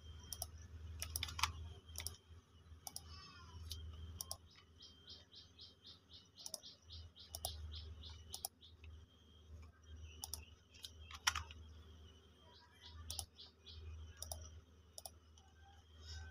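Faint clicks and keyboard key taps on a laptop, scattered, with a quick even run of about five taps a second in the middle. A low steady hum sits underneath.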